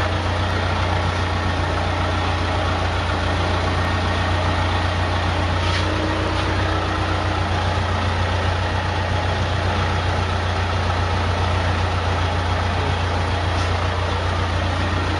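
The engine of a 10 kW wood gas generator running steadily, with a strong low hum. The generator is a dual-fuel set that burns wood gas and takes only about 20% diesel.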